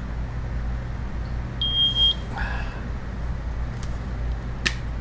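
Keto-Mojo blood glucose and ketone meter giving one short, high electronic beep, about half a second long, a second and a half in, over a steady low hum. A sharp click near the end.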